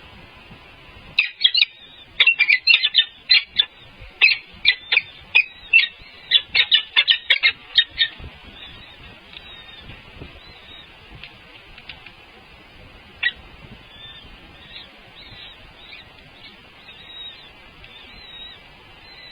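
Birds calling: a rapid run of short, high-pitched calls in quick succession for about seven seconds, then fainter, sparser calls.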